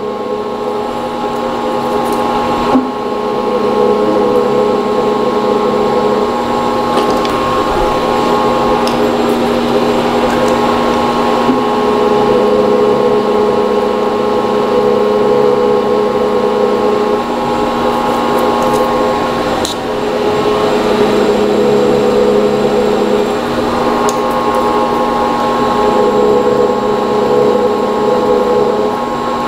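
Milling machine spindle running in back gear, a steady gear whine, while a countersink is fed down into soft copper. The lowest tone steps up and down every few seconds.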